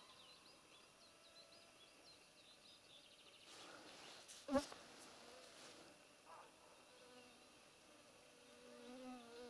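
Mostly quiet meadow with insects buzzing and faint bird chirps. About halfway through comes one short, sharp bark from a roe deer buck calling from the bushes during a territorial dispute with a rival buck.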